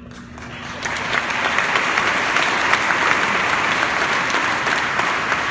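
Audience applauding, building up over the first second and holding steady.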